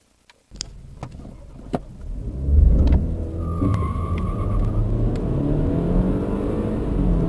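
BMW car engine accelerating hard from a standstill, heard from inside the cabin. A few clicks, then the engine note swells about two seconds in and climbs steadily in pitch as the car gathers speed.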